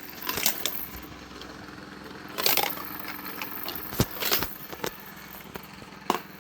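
A small toy rolling down a zigzag plastic toy track, with several short clacks and rattles as it knocks along the turns, over a steady low hum.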